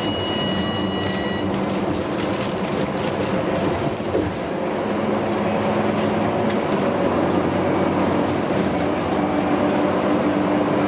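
Cabin noise of a Scania K310UB city bus under way: its rear-mounted diesel engine and drivetrain running, with road noise. Engine pitch and loudness dip briefly about four seconds in, then pick up again. A short high electronic beep sounds during the first second and a half.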